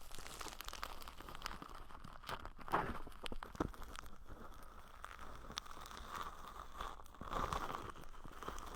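Close-miked ASMR ear-cleaning sounds: scratching, crinkling and rubbing right against the microphone, with scattered small clicks.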